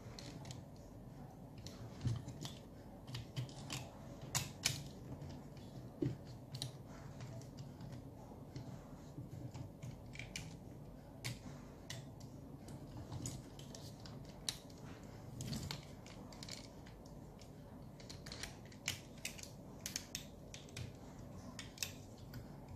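Parts of a Weijiang W8606 Thunder Leader (Optimus Prime) transforming robot figure clicking and tapping, irregularly and often, as they are carefully worked into place to form the truck's cab, over a faint steady low hum.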